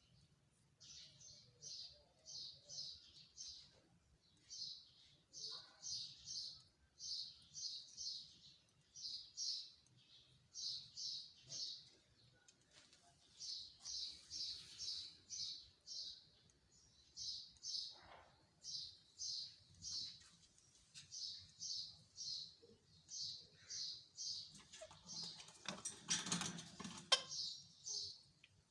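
Pet parrot chirping over and over, short high chirps in quick runs of three or four, about one run a second. A brief rustling noise near the end.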